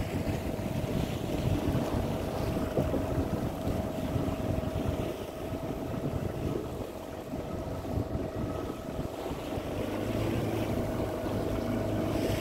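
Fishing boat's engine running steadily, with a constant hum-like tone over a low rumble, and wind buffeting the microphone.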